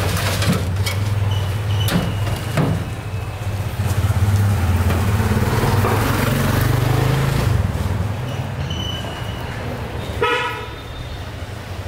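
Motorcycle engine running, growing louder as it passes close by and then fading. Sharp metal clanks of steel vessels and lids come near the start, and a short vehicle horn toot sounds near the end.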